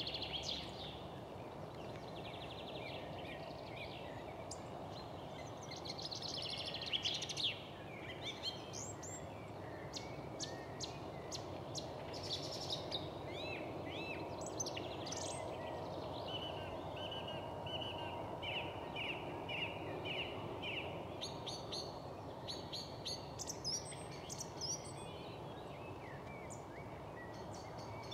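Wild birds chirping and singing in short high phrases, some calls quick repeated notes and others brief rising whistles, over a steady low background hum.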